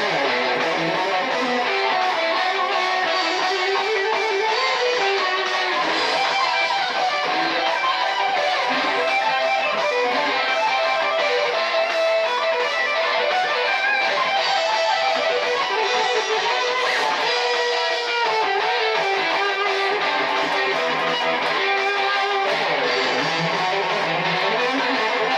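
Improvised lead solo on a Dean ML electric guitar, played over a heavy metal backing track in E minor; the music runs on without a break.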